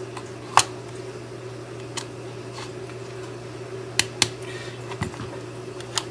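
Small sharp clicks and taps of a screwdriver and screw against a metal servo bracket inside a hollow plastic skull as a screw is started by hand, two of them close together about four seconds in, over a steady low hum.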